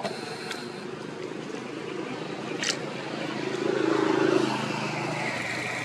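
An engine humming steadily, growing louder about four seconds in, with a single sharp click a little before that.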